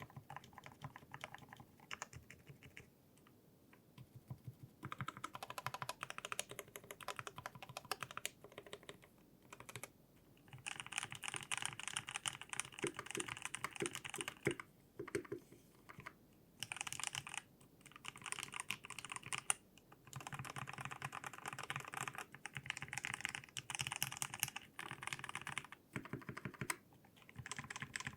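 Typing on a 60% mechanical keyboard with Unholy Panda switches lubed with Krytox 205, on a brass plate in a 5° aluminium case with PBT keycaps and foam in the battery cutout. Runs of fast keystrokes are broken by short pauses.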